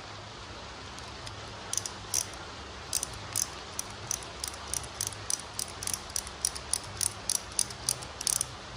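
Ratchet handle of a small socket set clicking as it is worked in short strokes: a run of sharp metallic clicks about three a second, starting about two seconds in, which the seller calls very loud.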